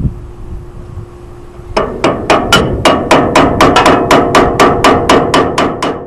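Rapid, even hammer taps on metal, about four or five a second, starting about two seconds in: knocking on a stuck bill hook in a New Holland 268 baler knotter to work it loose.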